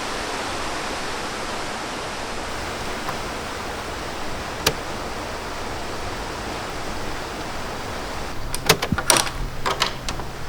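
Steady rain falling, an even hiss, with a single sharp tap about halfway through and a run of sharper taps near the end.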